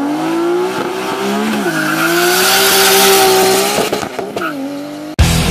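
Nissan Skyline GT-R R32's turbocharged straight-six accelerating hard. The revs climb, drop at a gear change about one and a half seconds in, climb again, and drop at a second change near four seconds.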